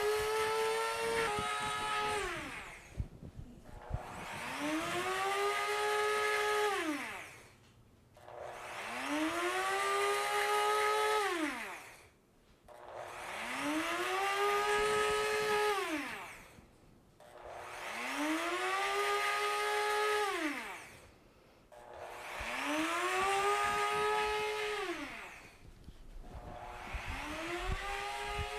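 Nutr nut-milk maker's blade motor running its self-clean cycle with water inside. It works in repeated bursts, each spinning up, holding for about three seconds and spinning down, with a short pause before the next, about one every four seconds, churning the water.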